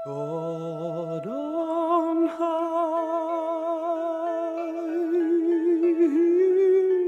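Slow background music: a voice holding long notes with vibrato over sustained accompanying tones.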